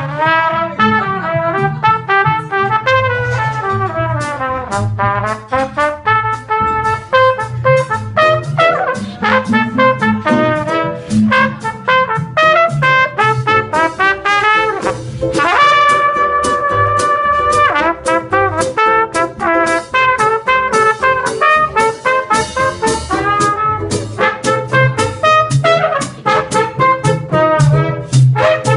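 Trumpet solo in a swing tune: quick runs of notes, with one long held high note about halfway through. Under it a washtub bass and a strummed ukulele keep a steady beat.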